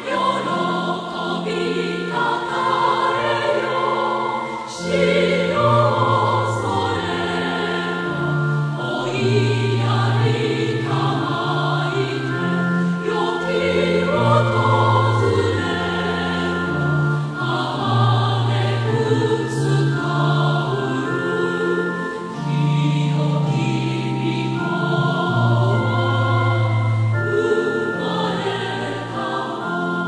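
Choir singing a Christmas hymn in slow, held chords.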